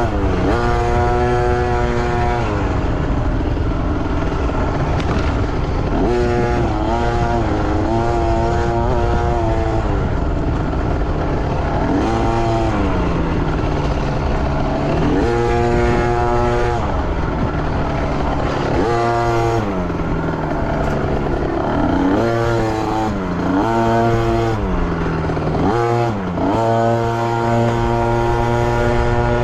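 Youth dirt bike engine revving up and down again and again as the throttle is worked on the trail, its pitch climbing, holding briefly and dropping every couple of seconds.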